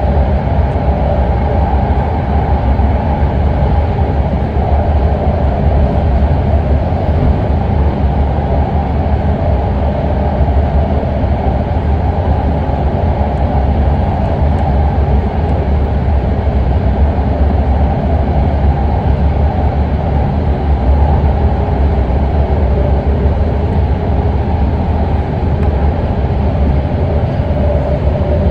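BART train running at speed between stations, heard from inside the car: a steady, loud rumble of wheels on rail with a faint steady tone above it.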